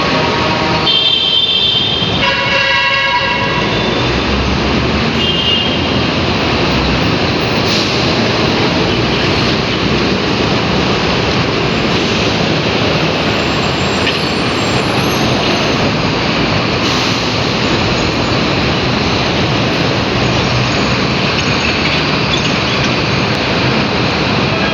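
Steady rush of wind and road noise from riding in traffic. Early on a vehicle horn sounds twice in quick succession, the second note lower than the first.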